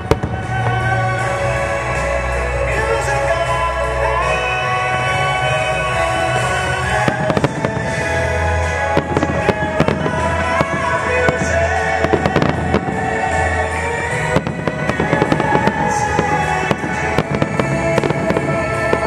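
Aerial firework shells bursting and crackling over loud music played through loudspeakers. The bangs come thick and fast from about seven seconds in.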